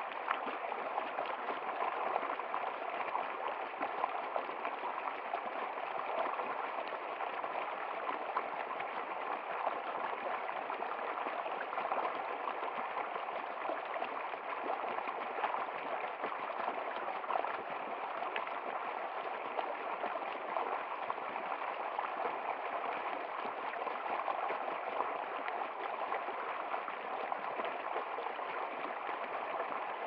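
Shallow rocky river flowing over stones and a low ledge, heard close to the water: a steady, even rush of water.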